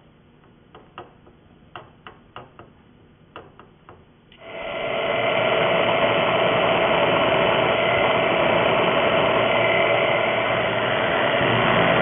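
Scattered light clicks for about four seconds, then about four and a half seconds in the Bridgeport milling machine's spindle starts and runs steadily with a drill bit cutting into the end of a round metal post, a loud even machining noise with a steady hum in it.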